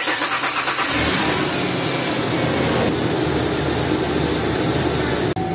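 A 1994 Ford Explorer's 4.0-litre V6 being started with its old, faulty mass airflow sensor. The starter cranks, then the engine catches about a second in and keeps running steadily.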